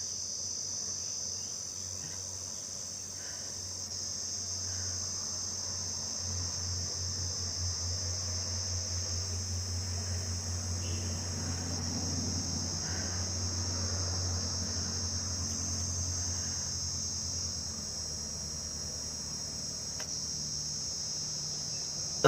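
Steady high-pitched insect chirring in the background, with a low pulsing hum from about four seconds in until about seventeen seconds.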